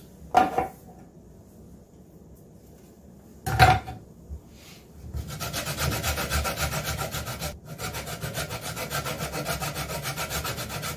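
Two sharp knocks, then from about five seconds in a lemon rubbed quickly back and forth over a flat metal grater: a rhythmic rasping as the rind is zested, with a brief break partway through.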